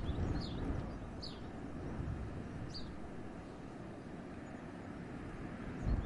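Winter wind in a forest, a steady low rumble with a stronger gust near the end, while a small bird gives short, high, falling chirps a few times in the first three seconds.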